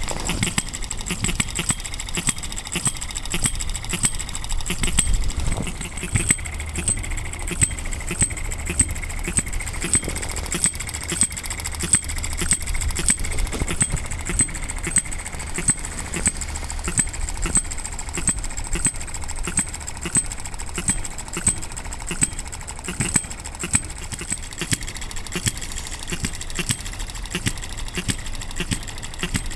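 RETROL & OKMO B01 Ball Top model engine, a 3.6cc water-cooled single-cylinder four-stroke hit-and-miss petrol engine, running: fast, even ticking with a louder beat about once a second. Its speed governor is controlling how many fire strokes there are, and it is running a little rich while it warms up on a cold day.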